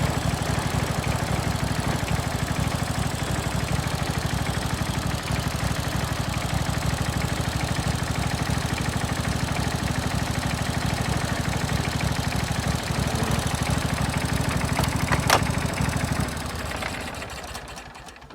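16 hp Briggs & Stratton V-twin engine on a John Deere riding mower running steadily and smoothly, with a couple of sharp clicks about fifteen seconds in; about a second later it is shut off and runs down to a stop.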